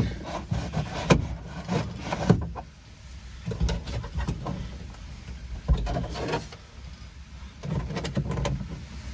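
Hands and a plastic pry tool working at a 2009 Mitsubishi Pajero's plastic rear-quarter trim panel: irregular knocks, clicks and rubbing of the clipped-in plastic.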